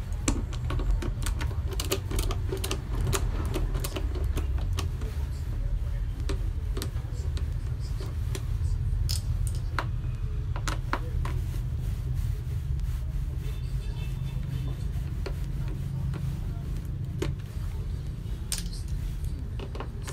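A screwdriver turning out screws from the plastic base of a Braun food processor: scattered sharp clicks and scrapes of the tool and screws on the hard plastic housing, over a steady low hum.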